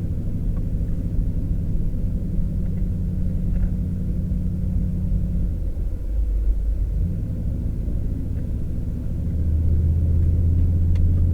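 Low, steady drone of a truck's engine and road noise heard from inside the cab while driving. The note shifts about six seconds in and grows louder near the end.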